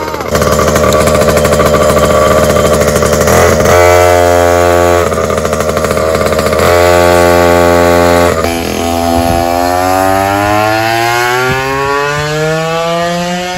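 Small two-stroke gas scooter engine with an expansion pipe, running and revved in two held bursts, then its pitch climbs steadily as the scooter accelerates away.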